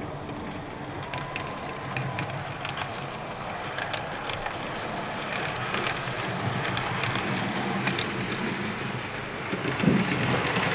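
Model Glacier Express train of the Rhaetian Railway, hauled by a red electric locomotive, running on the layout's track: a steady rolling rattle with many quick clicks from the wheels and rail joints, growing louder toward the end, with a low thump near the end.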